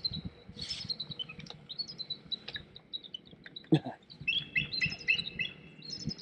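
Birds calling: short high chirps and quick chattering runs of notes. A single knock sounds a little past halfway through.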